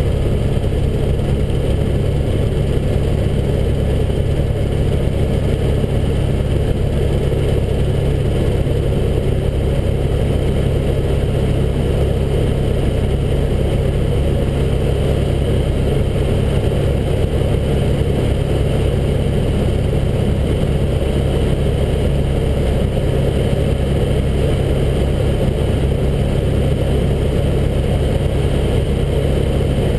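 Helicopter in flight heard from inside the cabin: a loud, steady drone of engine and rotor that does not change.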